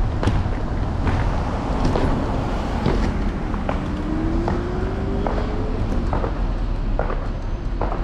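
Handlebar-mounted camera on an Apollo Explore electric scooter riding over city pavement: a steady rumble of wind and road noise with frequent short clicks and rattles from bumps. A faint whine rises in pitch from a little under four seconds in to near six seconds.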